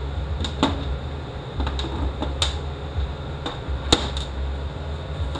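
Scattered light clicks and taps of small metal transmission valve-body parts being handled on a workbench, about nine in all, the sharpest a little under four seconds in, over a steady low hum.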